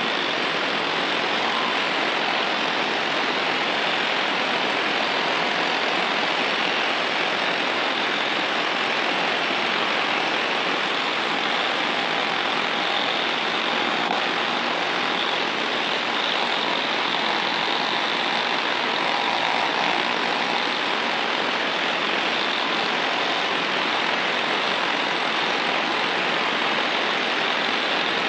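Von Arx pneumatic needle scaler running continuously, its needles hammering rust scale off painted steel in a steady, unbroken rattling buzz.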